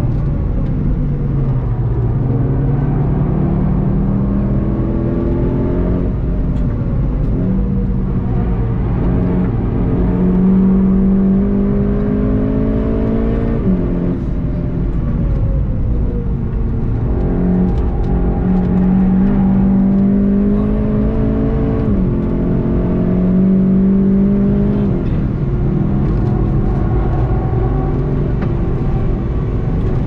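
Volkswagen Golf GTI TCR's turbocharged 2.0-litre four-cylinder engine heard from inside the cabin while driven hard. The engine note falls as the car slows, then climbs under acceleration, dropping sharply at two upshifts about halfway through and again later.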